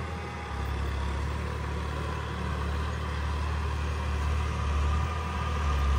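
Massey Ferguson 9500 tractor engine running steadily while pulling a maize planter, working but not at full load. The hum gets a little louder about half a second in and again near the end.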